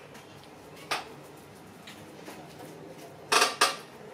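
Metal spoon tapping and scraping against a glass bowl while scooping soft potato filling: one light click about a second in, then two louder, sharp scrapes close together near the end.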